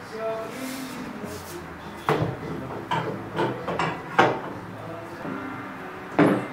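Wooden panels knocking and clacking as they are lifted and set down onto small clear plastic supports: a run of sharp knocks about two to four seconds in, and another loud knock near the end.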